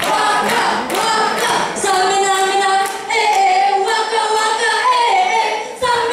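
A group of young people singing unaccompanied, clapping in time about twice a second; the singing swells into long held notes from about two seconds in.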